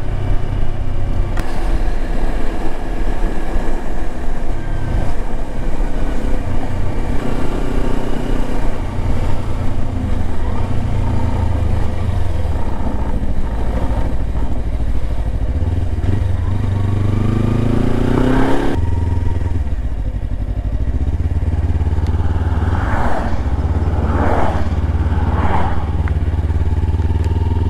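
Kawasaki Versys-X 300's parallel-twin engine running under way. Its revs climb in a rising whine about two-thirds of the way through, then drop off suddenly before it settles back to a steady run.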